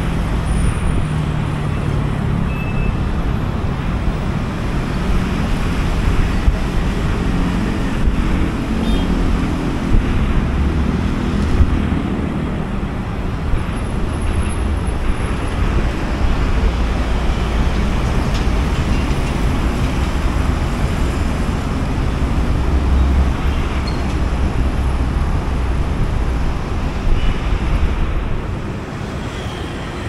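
Street traffic at a busy intersection: a steady rumble and hum of many engines, with motor scooters and cars idling in a queue at a traffic light. The noise drops a little near the end.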